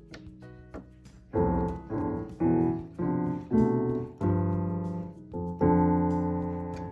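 Roland FP-30X digital piano being played: a few soft notes, then from about a second and a half in a series of loud chords, each fading after it is struck, the last one held and slowly dying away.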